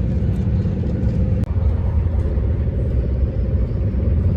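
A steady low rumble from a moving vehicle, with no changes in level.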